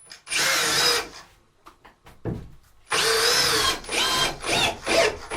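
Power drill running in bursts, its motor whine wavering in pitch: one long pull shortly after the start, another about three seconds in, then several quick short pulses near the end, as when driving a screw home.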